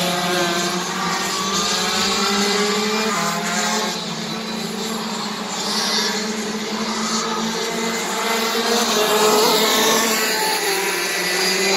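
Several racing kart engines running at once, overlapping, their pitch rising and falling as the karts accelerate and lift off around the track.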